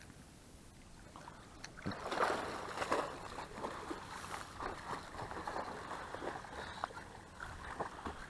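Water splashing and sloshing around a small fishing boat, with scattered knocks and clicks, loudest about two to three seconds in.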